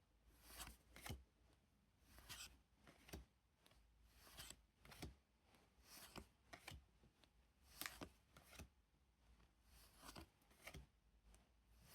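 Faint rustle of Pokémon trading cards being slid one over another through a stack, a short swipe about once a second.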